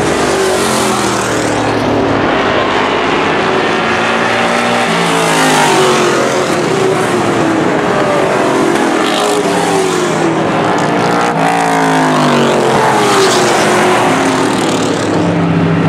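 Several street stock race cars running at racing speed around the track. Their engines overlap, each rising and falling in pitch as it goes by.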